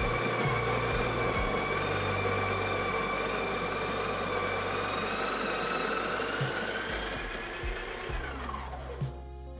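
Breville Barista Express's built-in conical burr grinder grinding coffee beans: a steady motor whine over grinding noise, which winds down with falling pitch about seven and a half seconds in. The beans are being run through to flush cleaning-tablet residue out of the burrs.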